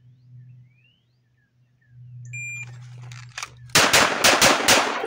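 A shot timer beeps once about two seconds in. About a second and a half later a CZ P01 9mm pistol fires five quick shots in a rapid string.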